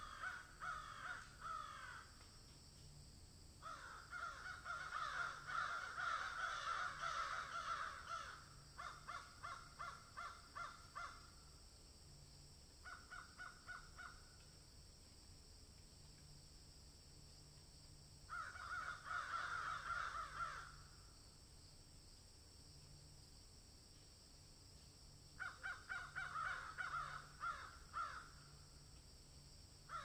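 An animal's harsh calls in about six bursts of rapid pulses, each lasting one to four seconds, with quiet pauses between, over a steady high hiss.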